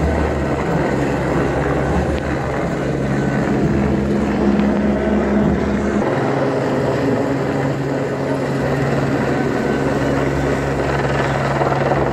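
Light helicopter flying low overhead: a steady, loud drone of main rotor and turbine engine. The low part of the hum changes about halfway through.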